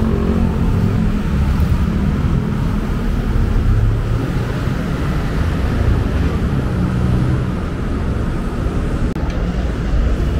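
Steady rumble of busy road traffic, with the running engines of cars and buses.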